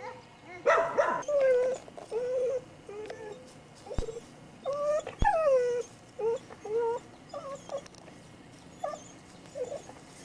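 Dog whining in a run of short, high whimpers that rise and fall in pitch, with a louder yelp about a second in.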